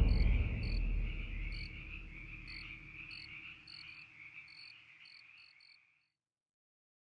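Chirping ambience of insects and frogs: a steady high buzz with short high chirps about twice a second over a low rumble, fading out and ending about six seconds in.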